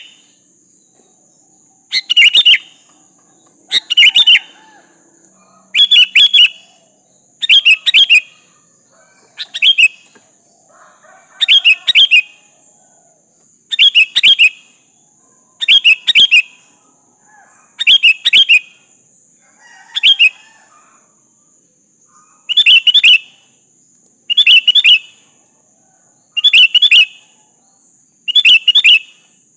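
Sooty-headed bulbul (kutilang) calling loudly, a short bright phrase repeated at even spacing about every two seconds.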